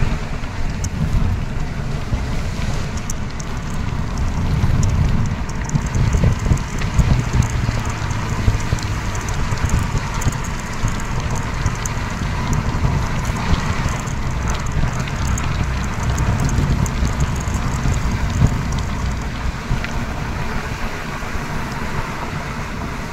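Steady road noise heard from inside a moving car: low tyre and engine rumble with wind and hiss over it.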